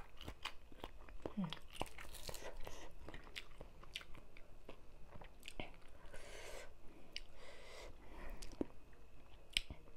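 Close-miked chewing and crunching of spicy Thai papaya salad (tam sua) with rice noodles, raw vegetables and shrimp, full of small wet mouth clicks. Now and then there is a soft rustle as fingers pick food off the platter.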